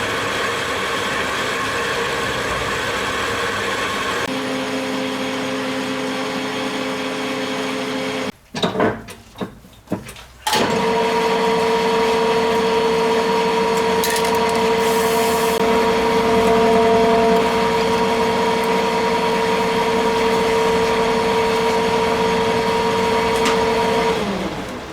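A small machine tool's motor running with a steady whine. It shuts off about eight seconds in, with a few knocks, starts again about two seconds later at a different steady pitch, and winds down near the end.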